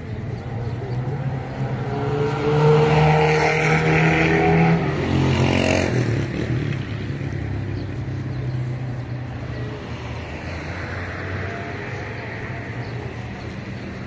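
A motor vehicle driving past, its engine swelling to its loudest about three to five seconds in and fading away by about seven seconds; a fainter passing follows around ten seconds in.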